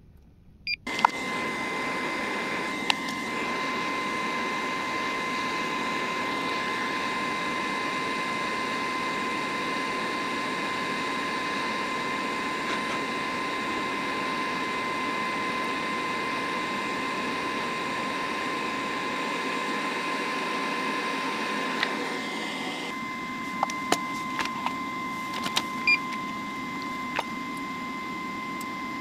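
Hot-air rework station blowing steadily while desoldering a failed TDP158 redriver chip: rushing air with a constant high tone, starting suddenly about a second in. Several sharp clicks of tools on the board come near the end.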